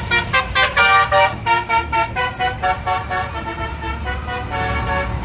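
A tour bus's 'basuri' telolet musical horn playing a quick melody of short, changing notes, loudest about a second in, over the low rumble of road traffic.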